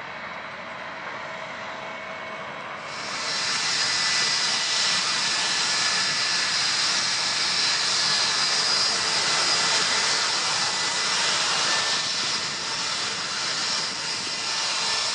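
Boeing 787-8 Dreamliner's jet engines on final approach with gear down: a steady, loud rushing with a high whine that comes in abruptly about three seconds in. Before that, fainter jet engine noise from a small business jet on the runway.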